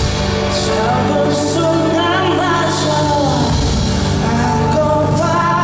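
Live pop-rock band performance: a male vocalist sings into a microphone over drums and bass guitar, heard from the audience.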